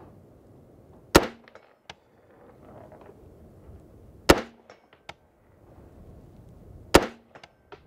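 Three rifle shots from a 6.5 Grendel AR-15, fired slowly about three seconds apart. Each is a sharp crack with a fading tail, and a fainter tick follows a moment later.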